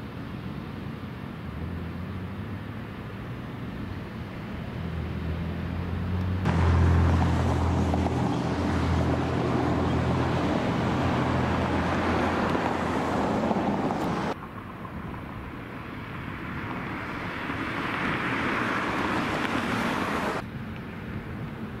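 Motor vehicle engines running with road traffic noise: a steady low rumble, with two louder stretches of rushing noise that start and stop abruptly.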